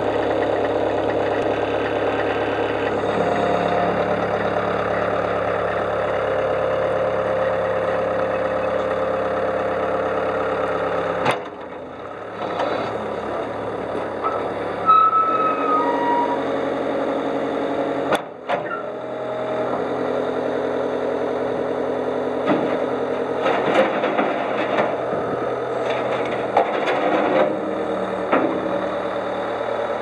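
2012 Caterpillar 246C skid steer loader's diesel engine running steadily while the loader arms are raised and lowered. A short whine and a rise in level come about 15 seconds in, and the sound cuts out briefly twice, near 11 and 18 seconds.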